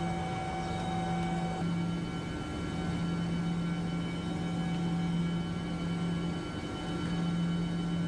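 Steady mechanical hum with several held tones over an even whir, from running chiller plant machinery. A couple of the tones shift about a second and a half in.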